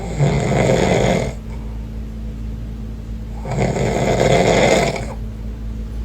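A man snoring: two loud, long snores about three seconds apart, each lasting over a second.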